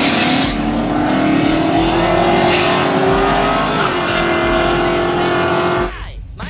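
Holden Commodore V8 at full throttle on a drag run. The engine note rises steadily for about four seconds, then holds high, with a burst of hiss at the start, and cuts off suddenly near the end.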